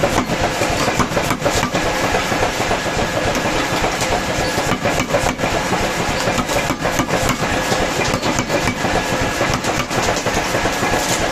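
Mechanical power hammer running and striking a hot steel bar held on its anvil in rapid, continuous blows.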